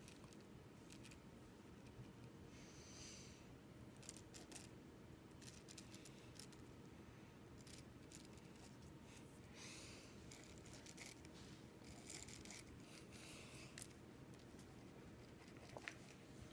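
Faint scratching of a pen drawing on paper, in short scattered strokes with small ticks.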